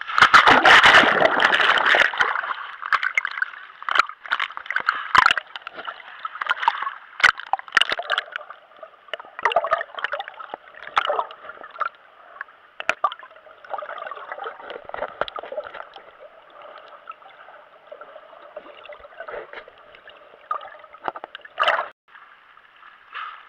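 Seawater splashing and gurgling around a GoPro in its waterproof case as a swimmer takes it into the sea, with a loud splash in the first two seconds as it enters the water, then a run of short, muffled sloshes and bubbling.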